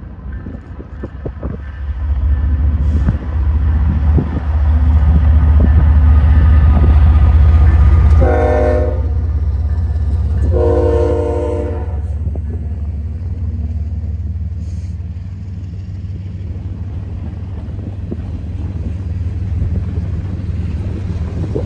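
Diesel-hauled freight train passing close by: the locomotives, an NS ES44AC leading and a CN SD75I trailing, rumble past, and the lead unit's horn sounds two blasts midway through, the second longer than the first. The freight cars then roll by with a lower steady rumble and wheel clatter.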